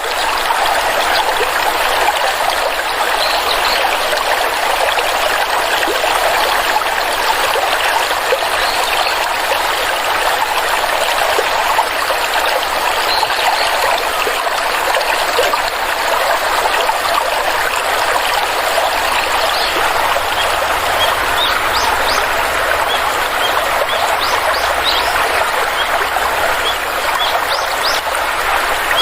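Small stream of water flowing steadily over rocks, a continuous rushing trickle with little splashes and gurgles.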